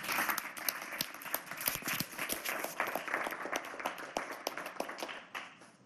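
Audience applauding: many hands clapping at once, fading out near the end.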